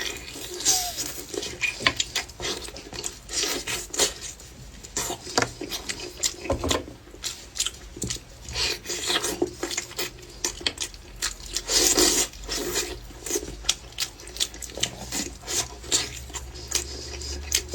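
Small pig's trotters being pulled off the bone and eaten close to the microphone: irregular clicks, smacks and rubbing sounds of handling and chewing.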